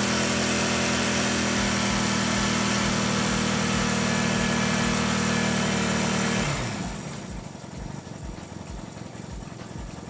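Vintage Honda twin-cylinder motorcycle engine, an air-cooled four-stroke parallel twin, running steadily at about 5,000 rpm. About six and a half seconds in, the revs fall and it settles to a quieter idle.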